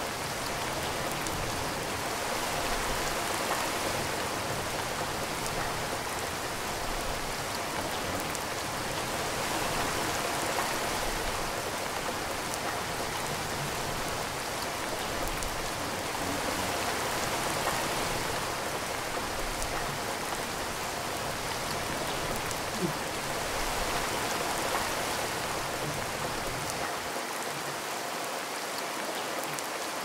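Rain beating down steadily, an even hiss of countless drops that swells and eases a little every few seconds.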